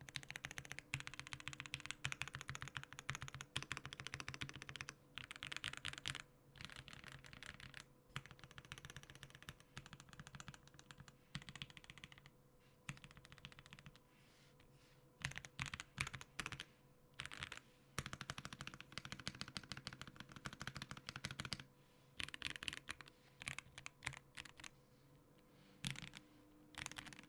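Typing on a Tiger80 custom mechanical keyboard with Gateron Oil King linear switches in an aluminium case with case foam: rapid runs of keystrokes with brief pauses between them.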